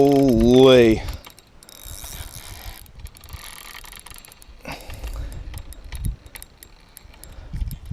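After a loud exclaimed "holy" at the start, soft mechanical clicking and rattling from a fishing reel and rod being handled, with scattered light ticks.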